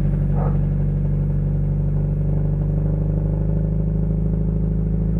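Subaru Impreza WRX STI's turbocharged flat-four engine idling steadily through an HKS Super Fire Racing M40i exhaust, heard close to the tailpipe. The engine is still warming up after a cold start.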